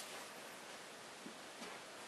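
Quiet room tone with two faint soft taps, one about a second and a quarter in and one just after.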